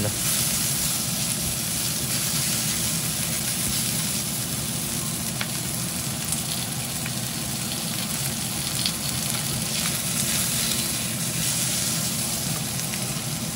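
Onion, green pepper and char siu sizzling steadily in hot oil in an iron wok as they stir-fry, turned now and then with a silicone spatula, with a few light scrapes.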